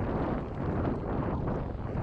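Wind rushing and buffeting over a GoPro's microphone as a mountain bike is ridden along. It is a steady, noisy rumble that is heaviest in the low end.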